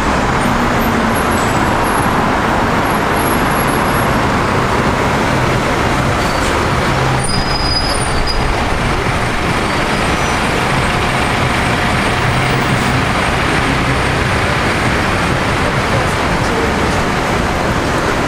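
Steady road traffic noise, with a heavy vehicle's engine humming low through the middle stretch.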